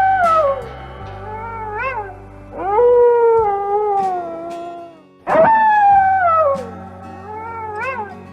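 Arctic wolf howling: long howls that rise briefly and then slide down in pitch, about four seconds apart, with short rising-and-falling calls between them. Background music runs underneath.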